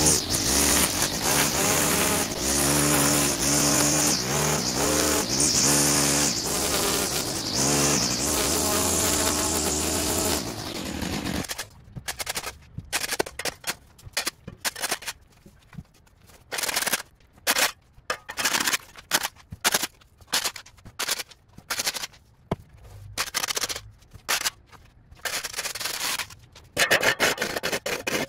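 An engine buzzing steadily for about ten seconds, then breaking into short choppy spurts of buzzing with brief near-silent gaps between them.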